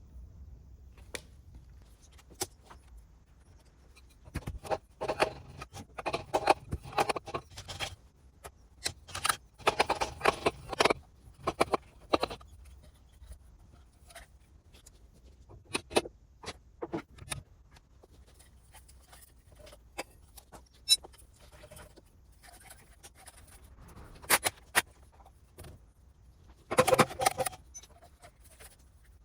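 Metal tools and engine parts clinking and rattling as they are handled, in irregular bursts of sharp clicks, the busiest clusters about five to eleven seconds in and again near the end.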